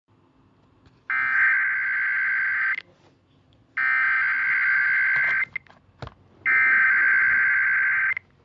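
Emergency Alert System SAME header: three identical bursts of digital data tones, each about 1.7 seconds long with about a second's pause between them. The header is sent three times to open an alert broadcast, here a high wind warning.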